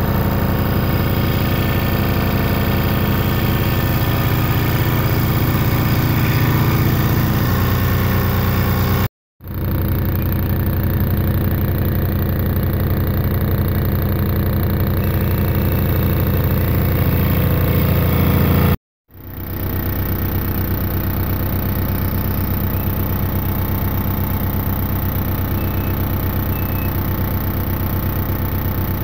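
Workzone scroll saw running steadily as its blade cuts out letters in an elm board, a loud, even motor hum. It cuts off abruptly for a split second about nine seconds in and again about nineteen seconds in.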